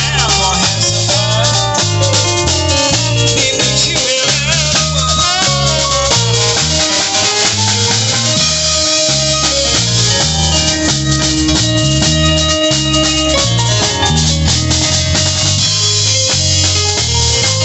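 Live New Orleans-style band of keyboard, drum kit, bass and trombone playing, with the drum kit and a stepping bass line prominent.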